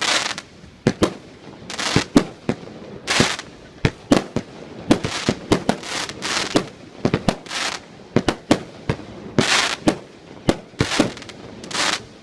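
Fireworks display with shells bursting in rapid succession: sharp bangs mixed with longer hissing, crackling bursts, about two or three a second.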